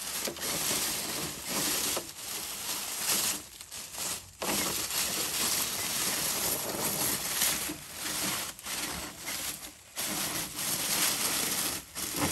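Dry leaves crunching and rustling steadily, broken by a few short pauses.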